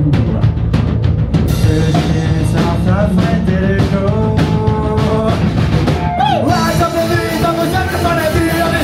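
Live punk rock band playing: electric guitars, bass and drum kit, with a voice singing. The sound grows fuller and brighter about six and a half seconds in.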